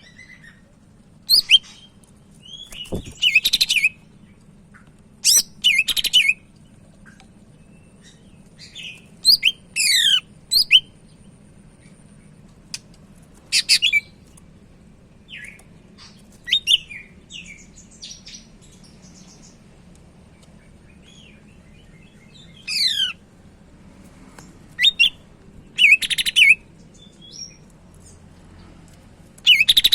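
Cucak ijo (greater green leafbird) singing vigorously in short, loud bursts of sharp chirps and quick sweeping whistles, some falling steeply in pitch, with gaps of a second or two between phrases.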